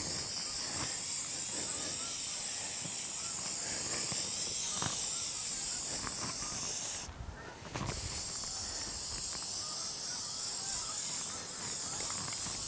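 Aerosol can of black Plasti Dip spraying a steady hiss onto a plastic dome as a thin first coat. The spray stops for under a second about seven seconds in, then starts again.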